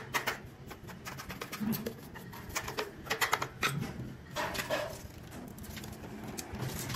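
A hand rubbing and scraping wet mortar around a plastic floor-drain pipe, with scattered small clicks. A few short low sounds come and go in the background.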